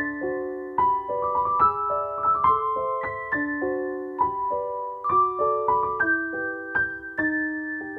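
Background piano music: a gentle tune of struck notes and chords, each ringing and fading, with a chord held out near the end.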